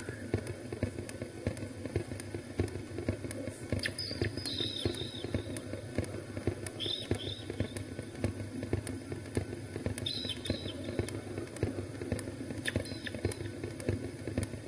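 Experimental electronic sound piece: a steady low crackling drone with short high chirping sounds about every three seconds.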